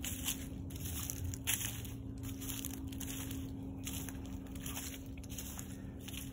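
Footsteps crunching through a thick layer of dry fallen leaves, about two crackling steps a second.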